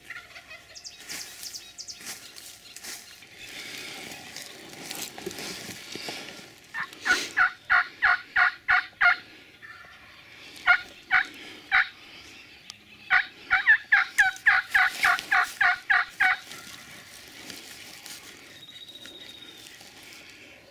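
Three runs of loud turkey yelps, evenly spaced at about four to five notes a second: a run of about nine notes, a short run of three, then a longer run of about a dozen and a half.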